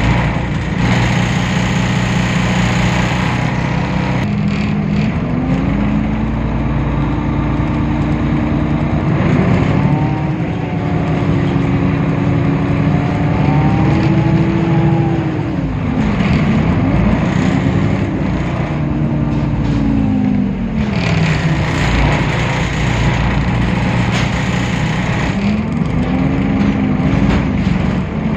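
Temsa Avenue LF city bus's DAF PR 228 diesel engine running with a deep rumble, its note rising as the bus accelerates and falling as it slows, several times over.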